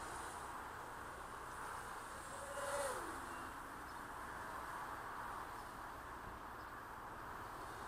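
A 250-size FPV racing quadcopter on tri-blade 5-inch props buzzing steadily in flight. About three seconds in it gets louder as it passes close, its pitch sliding down as it goes by.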